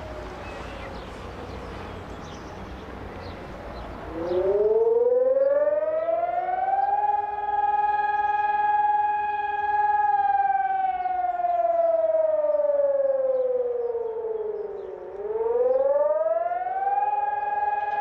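Civil-defence warning siren starting up about four seconds in. Its pitch rises to a steady high tone and holds, then slides slowly down and rises again near the end. These are the first tones of the general danger warning signal, sounded over steady background noise.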